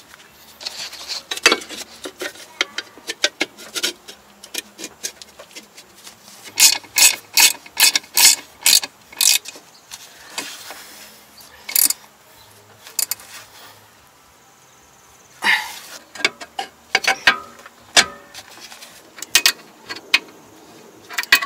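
Ratchet wrench clicking in short runs of strokes, with a pause in the middle, as the nut of a new ball joint is tightened on a Mercedes-Benz W211's front suspension.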